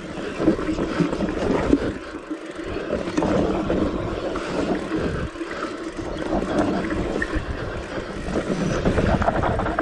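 Mountain bike riding fast down a dirt trail: wind rushing over the microphone, tyres on loose dirt, and the bike rattling with many short, irregular knocks over the bumps.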